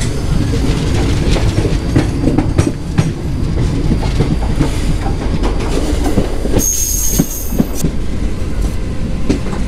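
Passenger train coach running along the track: a steady rumble with the wheels clattering over rail joints. A brief high squeal lasts about a second, roughly two-thirds of the way in.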